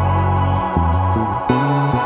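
Electronic music played live: held synthesizer chord tones over a low line of notes that steps from pitch to pitch every quarter to half second.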